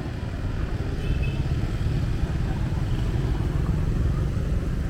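Steady low rumble of street traffic, with motor vehicles running along the road.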